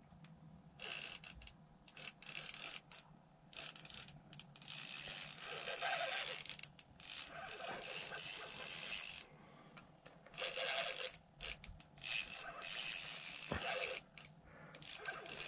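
Spinning reel being worked in repeated bursts of one to three seconds, with short pauses between, while a heavy fish pulls on the bent ice-fishing rod.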